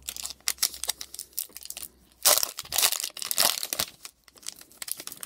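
Foil wrapper of a Pokémon trading-card booster pack being crinkled and torn open by hand, a run of crackly rustles with the loudest rips a little over two seconds in.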